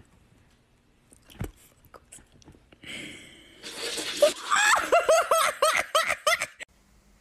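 A person laughing hard in a quick run of short laughs, about four a second, that starts a little past halfway and stops abruptly near the end. A single thump comes earlier.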